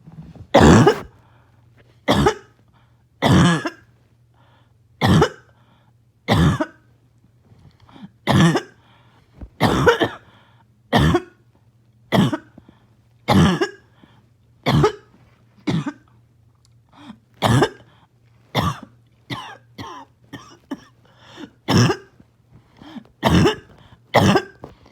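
A person with a harsh, barking cough, coughing about once a second in a long fit of some twenty coughs, with a run of smaller, quicker coughs past the middle. The fit was set off by an itchy nose and throat.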